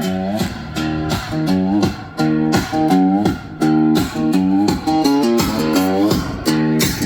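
Instrumental guitar music with bass, repeated plucked chords, played through a motorcycle's custom audio system of a Helix amplifier and Focal speakers.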